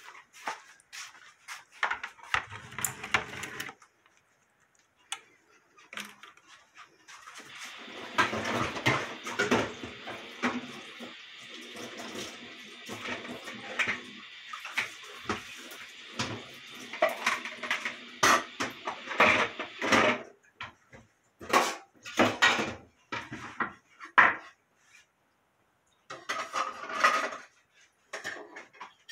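Kitchen clatter: a glass baking dish and other dishes being handled and set down, with scattered clinks and knocks. A steady rushing noise runs for about twelve seconds in the middle.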